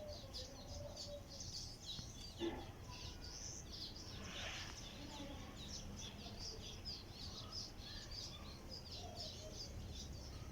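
Many small birds chirping continuously in quick, overlapping high chirps, over a faint steady low hum, with one short knock about two and a half seconds in.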